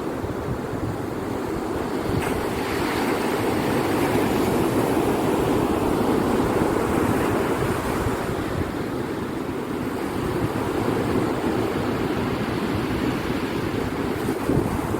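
Ocean surf breaking and washing on a beach, a continuous rushing that swells about two seconds in and eases a little after about eight seconds, with wind rumbling on the microphone.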